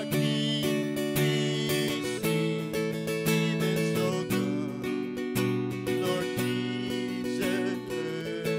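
Acoustic guitar strummed in a steady rhythm, with chords ringing between the strokes and changing every second or two. There is no voice.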